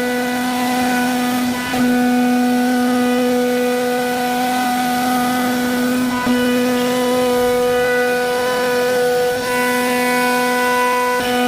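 CNC wood carving router's spindle running with a steady high whine while it cuts wood, dipping briefly twice.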